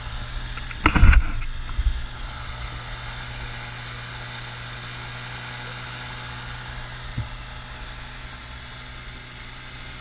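Outboard motor pushing a 14-foot jon boat under way: a steady drone with wind and water wash, and a loud thump about a second in.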